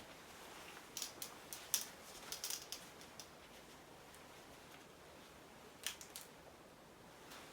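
Small, sharp clicks and taps from objects being handled in a quiet room. They come in a quick cluster from about one to three seconds in, then twice more near six seconds.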